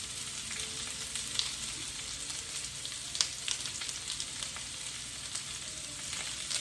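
Potatoes frying in bacon fat in a pan: a steady sizzle with scattered pops and crackles.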